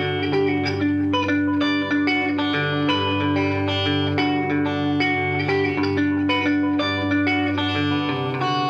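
Solo electric guitar played through a combo amp: a quick stream of picked notes ringing over sustained low bass notes, with the bass shifting to a new pitch near the end.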